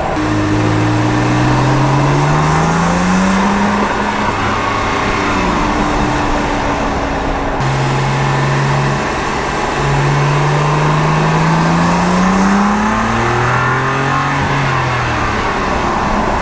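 2016 BMW M3 F80's twin-turbo inline-six, heard from the engine bay, pulling hard with its pitch climbing. There is a break in the sound about seven and a half seconds in, followed by a second rising pull that eases off and falls near the end, with a faint high turbo whine rising along with each pull.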